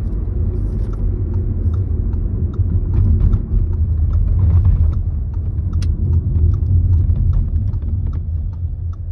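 Steady low road rumble inside a Skoda Kamiq's cabin at low speed, with many short squeaks and creaks from the car's trim over it, about every half second, and a sharp click about six seconds in. The squeak is the abnormal noise that the owner likens to styrofoam rubbing, worst at low speed on uneven road.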